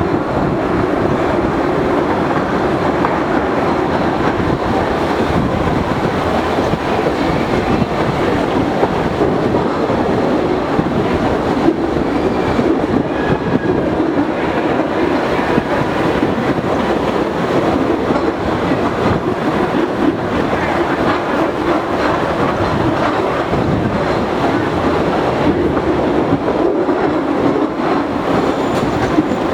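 Postojna Cave tourist train running steadily along its track, a continuous, even noise of wheels on rails with no stops or pauses.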